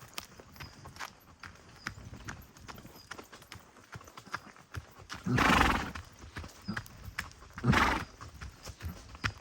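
Steady footfalls at a walking pace, about two to three a second, with two loud, short rushing noises a little past halfway.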